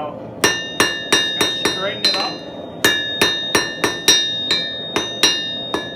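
Hand hammer striking red-hot 3/8-inch square steel bar on an anvil face, about three blows a second in two runs with a short break about two seconds in. Each blow leaves the anvil ringing briefly.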